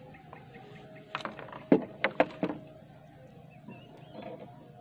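Four or five sharp knocks and taps in quick succession, from handling a small freshly caught fish and the fishing tackle aboard a small wooden boat.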